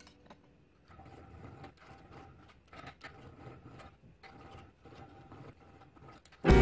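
Hand filing on a high-speed-steel knife blank clamped in a vise: a faint run of short scraping strokes, about two or three a second. Loud guitar music comes in at the very end.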